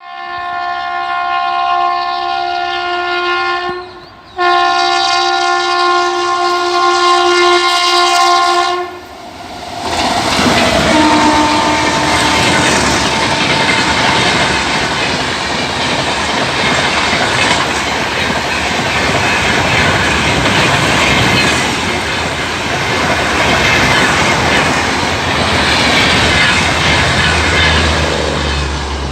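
Sealdah Rajdhani Express locomotive sounding its horn in two long blasts, the first stopping briefly about four seconds in and the second ending about nine seconds in. The express train then rushes past at full speed, its wheels on the rails giving a loud, dense rumble and clickety-clack that thins to a low rumble near the end.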